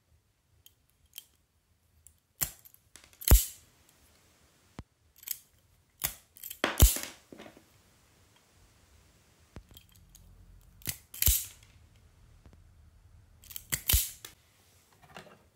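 Klein Tools Katapult self-adjusting wire stripper stripping the ends of short copper wire pigtails, about four times. Each stroke is a light click followed by a louder snap as the jaws close and pull the insulation off.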